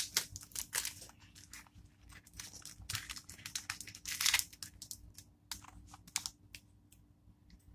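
A sticker sheet and its paper and cardboard backing being handled on a table: an irregular string of short crackles, taps and crinkles, with a longer rustle about four and a half seconds in.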